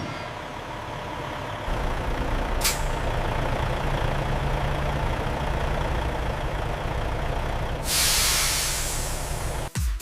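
Truck engine running with a steady low rumble that sets in about two seconds in, with a brief sharp click just after. Near the end comes a long air-brake hiss as the brakes are released for departure.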